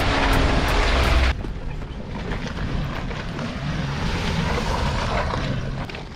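Music with a steady beat for just over a second, cutting off suddenly. Then wind buffets the microphone over the low engine note of off-road SUVs driving slowly across a wet, stony track.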